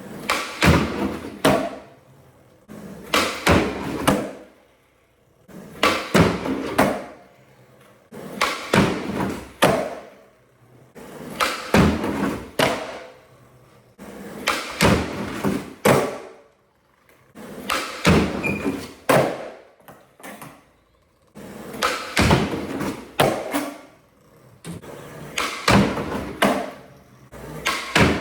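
Skateboard tricks attempted over and over: sharp pops and clacks of the deck on pavement, then urethane wheels rolling, in about nine or ten bursts spaced two to three seconds apart.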